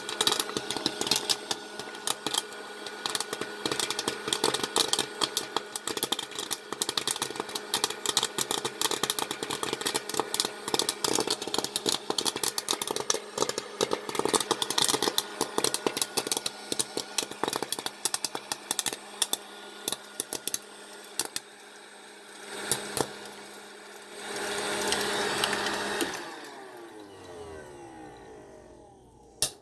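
West Bend electric popcorn maker popping kernels: a dense, rapid crackle of pops over the machine's steady hum. The popping thins out after about twenty seconds, and the hum stops near the end as popping finishes.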